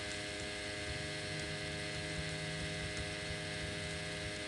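Steady hiss with a low electrical hum and a few fixed tones underneath: the recording's background noise, with no speech.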